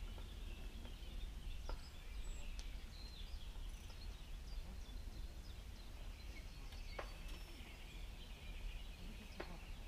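Faint birdsong, many small high chirps over a steady low outdoor rumble. Three faint sharp ticks are spread through it.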